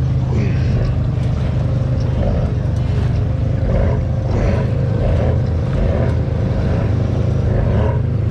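ATV engine running steadily as the machine wades through deep muddy water, with the water sloshing and churning around it.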